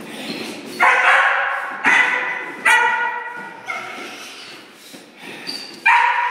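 A 15-week-old puppy barking: five loud, high-pitched barks, each starting sharply and tailing off, with the last one near the end.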